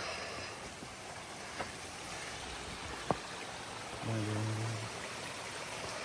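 Water of a stream or spring running steadily, with two faint clicks and a brief low hum about four seconds in.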